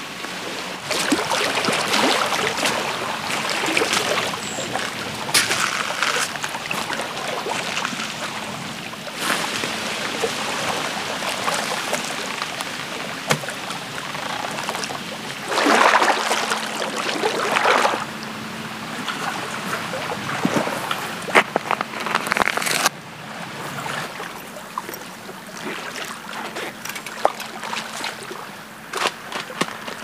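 Small lake waves lapping and washing over shoreline rocks and sand, swelling in louder surges now and then.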